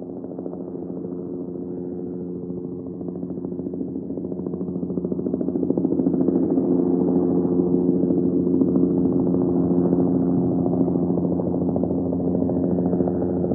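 Helicopter rotor beating rapidly over a steady engine drone, growing louder over the first six seconds as it approaches, then holding steady.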